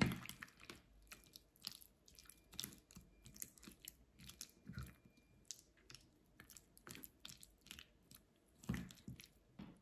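Wooden utensils stirring and mashing a soft, creamy fruit filling in a stainless steel bowl: irregular wet squelches and light clicks of wood against the bowl, with a louder knock at the start and another near the end.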